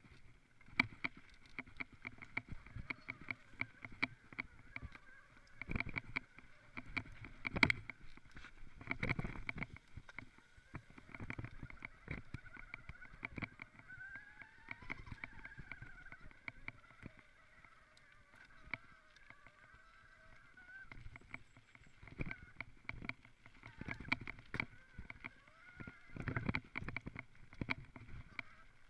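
Electric mountain bike riding a rough forest trail, heard from a camera mounted on its handlebar: irregular rattles, clicks and knocks from the bike over bumps and roots. A faint wavering whine runs for several seconds in the middle.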